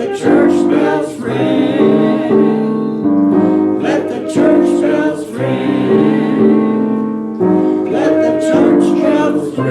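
Choir singing a Christmas song with piano accompaniment, in long held chords that change about every second.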